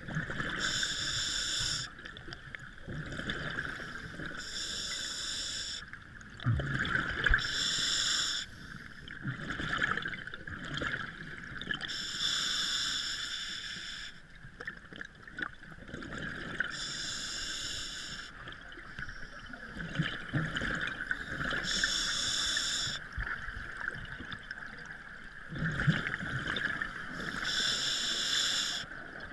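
Scuba diver's regulator breathing heard underwater: a hiss every four to five seconds, with bursts of bubbling from exhaled air in between, over a steady underwater background hiss.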